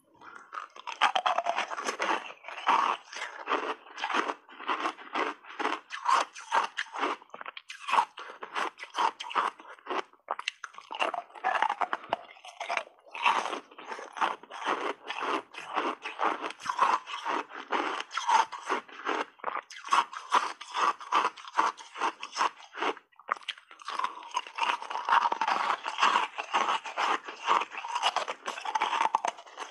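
Mouth crunching and chewing big bites of refrozen, reshaped ice coated in passionfruit pulp: a dense, rapid run of crisp crunches with only brief pauses.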